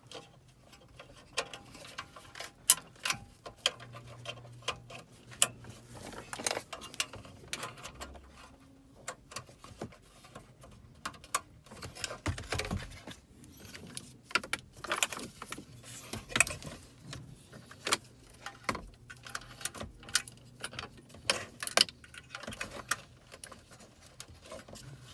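Plastic wiring-harness connectors being handled and pushed into the back of a car audio head unit: irregular plastic clicks and rattles, with the sharper clicks of connectors latching home.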